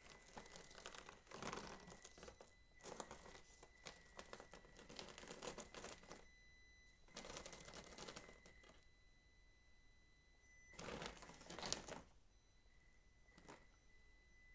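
Faint scrabbling and crunching of a Traxxas TRX-4M micro rock crawler's tires and drivetrain working up a rocky foam climb, in four irregular stretches of a second or two each. A thin steady high tone runs underneath.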